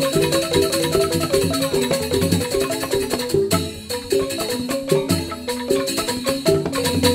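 Balinese joged bumbung gamelan music: bamboo xylophones play fast, busy note patterns over percussion. The music thins out briefly a little past halfway.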